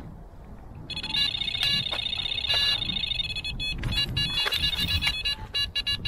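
Electronic carp bite alarm sounding a run: a rapid, near-continuous stream of high beeps starts about a second in and turns to broken, stuttering beeps after about four seconds, the signal of a take as line is pulled off the rod.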